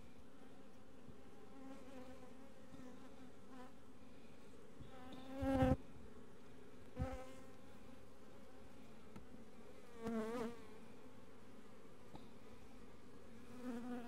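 Honey bees buzzing steadily around an open hive. Four times the buzz swells louder, with the pitch bending up and down as if single bees are passing close: about five and a half, seven and ten seconds in, and near the end.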